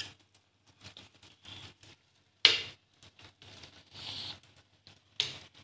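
Metal spoon scraping and clinking against a steel kadhai while stirring thick Maggi noodles, in short irregular strokes, with a sharp clank about two and a half seconds in and another near the end.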